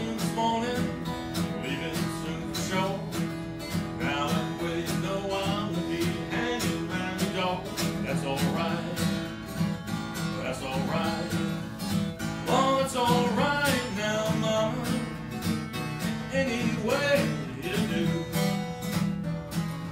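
Solo blues guitar playing an instrumental break over a steady strummed rhythm, with a few bent single-note lines about two-thirds of the way in.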